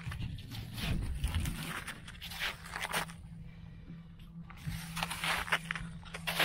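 Footsteps crunching through snow in a run of steps, a pause of about a second midway, then more steps, over a faint steady low hum.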